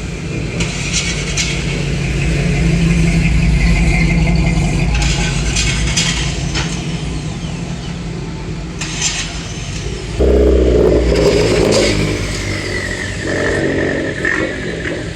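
Car engines running and revving, swelling a couple of seconds in, with a sudden louder surge about ten seconds in.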